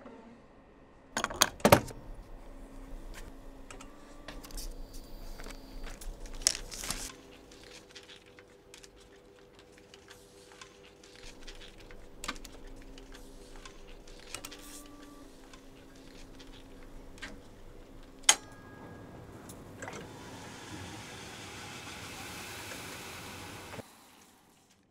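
Ampex MM-1200 multitrack reel-to-reel tape recorder being loaded by hand: metal reel and transport clicks and knocks, the loudest about a second and a half in and one sharp click later, over a faint hum that comes and goes. Near the end the transport spins up, and the tape winds with a whirring hiss for about four seconds, then stops abruptly.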